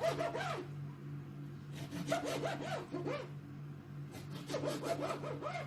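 Knife sawing back and forth through a fish fillet on a cutting board, in three short bursts of scraping strokes.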